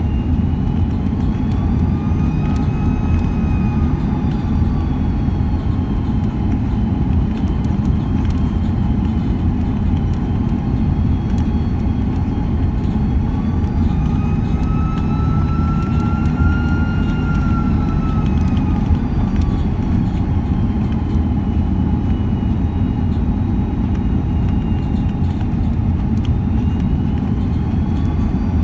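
Airbus A330 cabin noise in flight: a steady roar of engines and airflow, with the jet engines' whine slowly rising and falling twice as thrust is adjusted.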